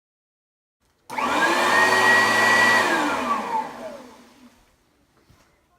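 Oreck XL upright vacuum cleaner switched on about a second in: the motor starts abruptly, runs at full speed for about two seconds, then is switched off and winds down with a falling whine.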